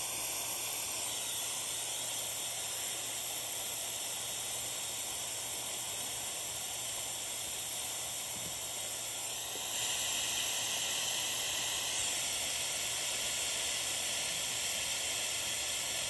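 Steady hiss of air in a fuel tank's vacuum-test rig while vacuum is being drawn on the tank. It steps up louder about ten seconds in.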